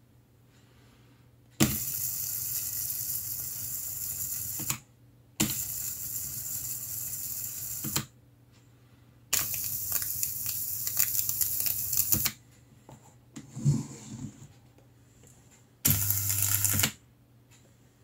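Small homemade Tesla coil discharging into a candle flame through a wire at the wick, switched on four times: a harsh buzzing hiss of about three seconds, another of about two and a half, another of about three, and a short one of about a second, each starting and stopping abruptly. A few soft knocks fall in the gap before the last burst.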